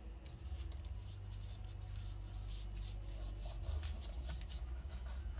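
Soft rubbing and rustling of hands smoothing a folded sheet of cardstock flat on a cutting mat, over a low steady hum.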